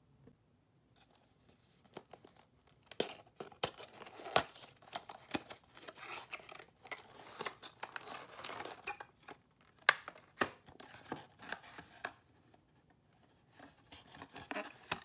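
A cardboard box and its clear plastic inner packaging being opened by hand: rustling, crinkling and sharp clicks as the plastic tray slides out of the box. It starts about three seconds in, stops briefly near the end, then the rustling resumes.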